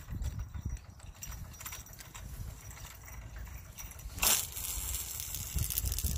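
Wind buffeting the microphone, making an uneven low rumble, with a brief loud rush of noise about four seconds in.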